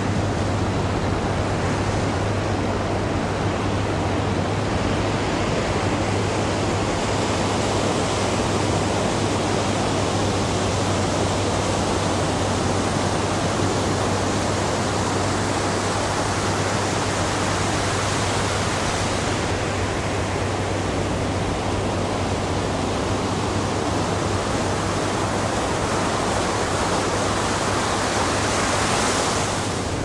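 Ocean surf breaking and washing in: a continuous rushing roar of waves that gently swells and eases, with a steady low hum underneath.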